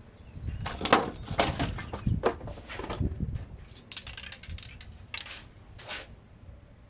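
Irregular metallic clinking and clattering, as of metal tools or parts being handled, busiest in the first three seconds.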